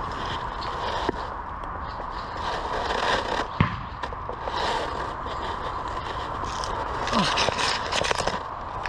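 Rustling and scraping of brush and gear close to the microphone, with scattered crackles and one sharp knock about three and a half seconds in.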